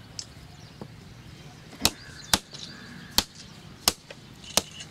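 Coconuts being cracked open on the ground: five sharp cracks, about half a second to a second apart, starting about two seconds in.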